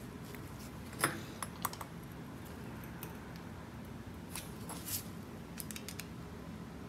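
Light, irregular clicks and taps of small metal fuel-pump parts being handled, the sharpest about a second in and a quick cluster near the end, over a faint steady hum.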